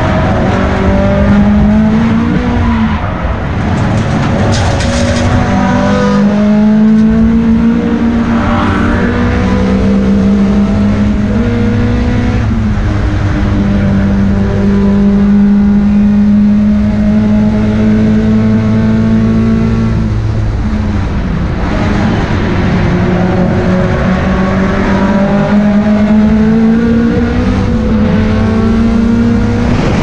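Racing sedan's engine heard from inside the cockpit under hard driving. Its pitch climbs and drops with shifts and corners, with a dip about three seconds in and a long steady stretch in the middle.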